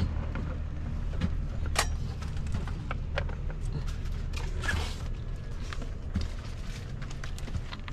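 Scattered light clicks and knocks as the cloth door of a folding camp kitchen cabinet is opened and the items inside are handled, over a steady low hum.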